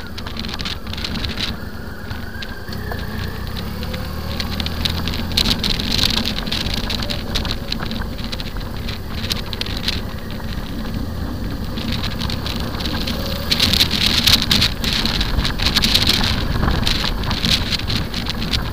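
Motorcycle riding along at road speed: wind buffeting and crackling on the bike-mounted camera's microphone over the steady low drone of the engine, with the wind gusting louder about two-thirds of the way through.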